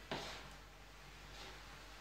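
A spatula scraping and stirring rice in a frying pan: one short scrape just after the start, then faint stirring.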